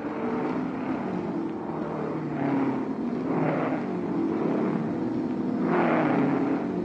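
Racing sports-car engines at speed, with a few cars passing one after another, each engine note swelling and fading as it goes by.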